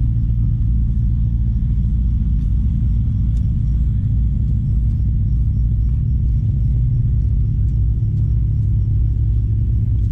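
Steady, loud low rumble that holds an even level throughout.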